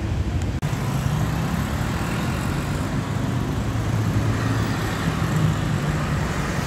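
Busy city road traffic: cars, motorcycles and a bus passing, with a steady low engine hum and a brief drop-out about half a second in.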